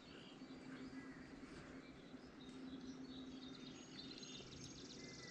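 Faint outdoor ambience with small birds chirping now and then; from about four seconds in, a high, rapid trill joins them.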